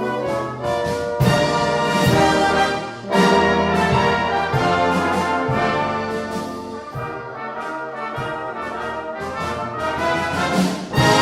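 Brass band playing a slow piece in held chords, the chords changing about once a second.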